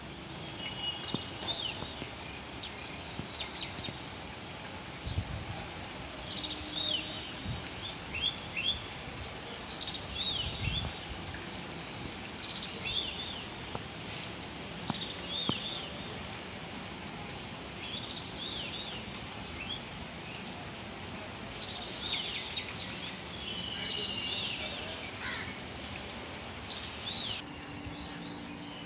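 Birds calling outdoors: one repeats a short high note about once a second, while others give bursts of quick falling chirps, over a steady faint background hiss.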